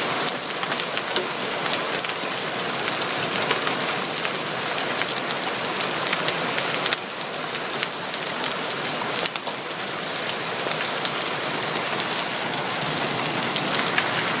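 Hail and heavy rain pelting down: a dense steady hiss with frequent sharp hits from large hailstones striking surfaces.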